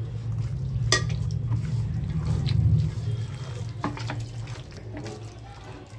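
Raw chicken being mixed by hand with curd and spices in an aluminium pot: wet squelching and slapping, with a sharp clink about a second in and another near four seconds. A steady low hum runs underneath.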